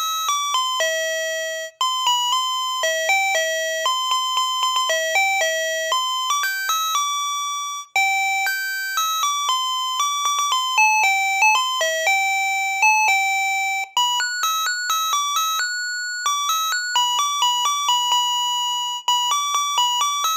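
Kenko KK-8139TH voice calculator alarm clock playing one of its alarm tunes from its melody chip. It is a one-note-at-a-time electronic melody of bright beeping notes, each fading quickly. The tune breaks off briefly about every six seconds.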